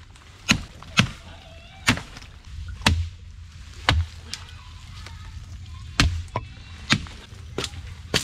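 Machete blade chopping into the trunk of a small green thorn tree: about ten sharp blows, roughly one a second, with a pause of about two seconds midway.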